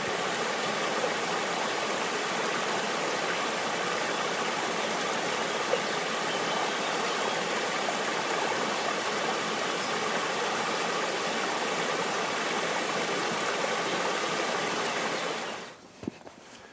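Mountain stream rushing over rocks: a steady, even rush of water that fades in at the start and fades out near the end.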